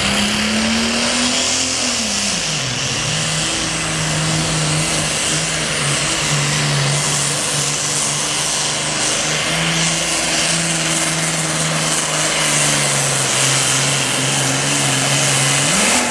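Super Farm class pulling tractor's diesel engine running flat out under load. Its pitch dips about two seconds in and then holds fairly steady, before dropping sharply at the end as the throttle comes off.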